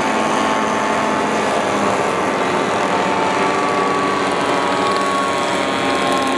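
Engines of several radio-controlled WW1-style model airplanes in flight, overlapping in a steady drone whose pitch drifts slowly as the planes manoeuvre.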